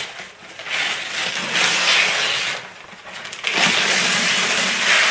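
Wrapping paper being torn and crumpled as a present is unwrapped, in two long rustling stretches with a short lull between them.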